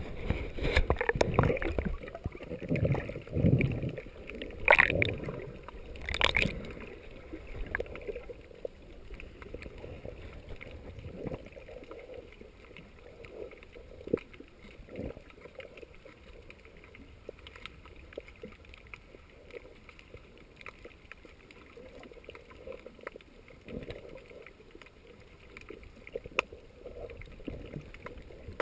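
Muffled underwater water sound picked up by a camera held below the surface while snorkeling: gurgling and sloshing, louder over the first few seconds with two sharp knocks about five and six seconds in, then a quieter steady wash with scattered faint clicks.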